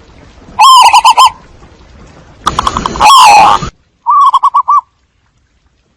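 Zebra dove cooing: three loud bursts of rapid, staccato rolling coos. The middle burst is longer and hissier than the other two. This is a looped lure recording used to call in doves.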